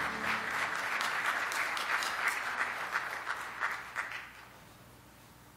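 Audience applauding, with many individual claps, dying away about four seconds in.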